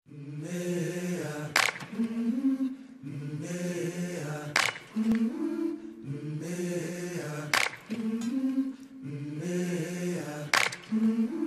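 A short wordless a cappella vocal phrase in several voices, repeated four times about every three seconds, each time with a sharp hit. This is the looping intro of the song, before the lyrics come in.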